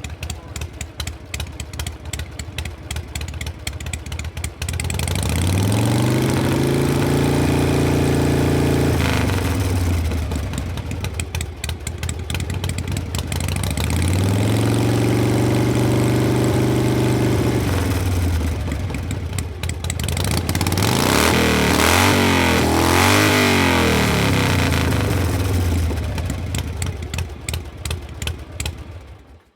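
Harley-Davidson Panhead V-twin motorcycle engine idling, revved up and held twice, each time dropping back to idle, then blipped in several quick revs. It ends abruptly near the end.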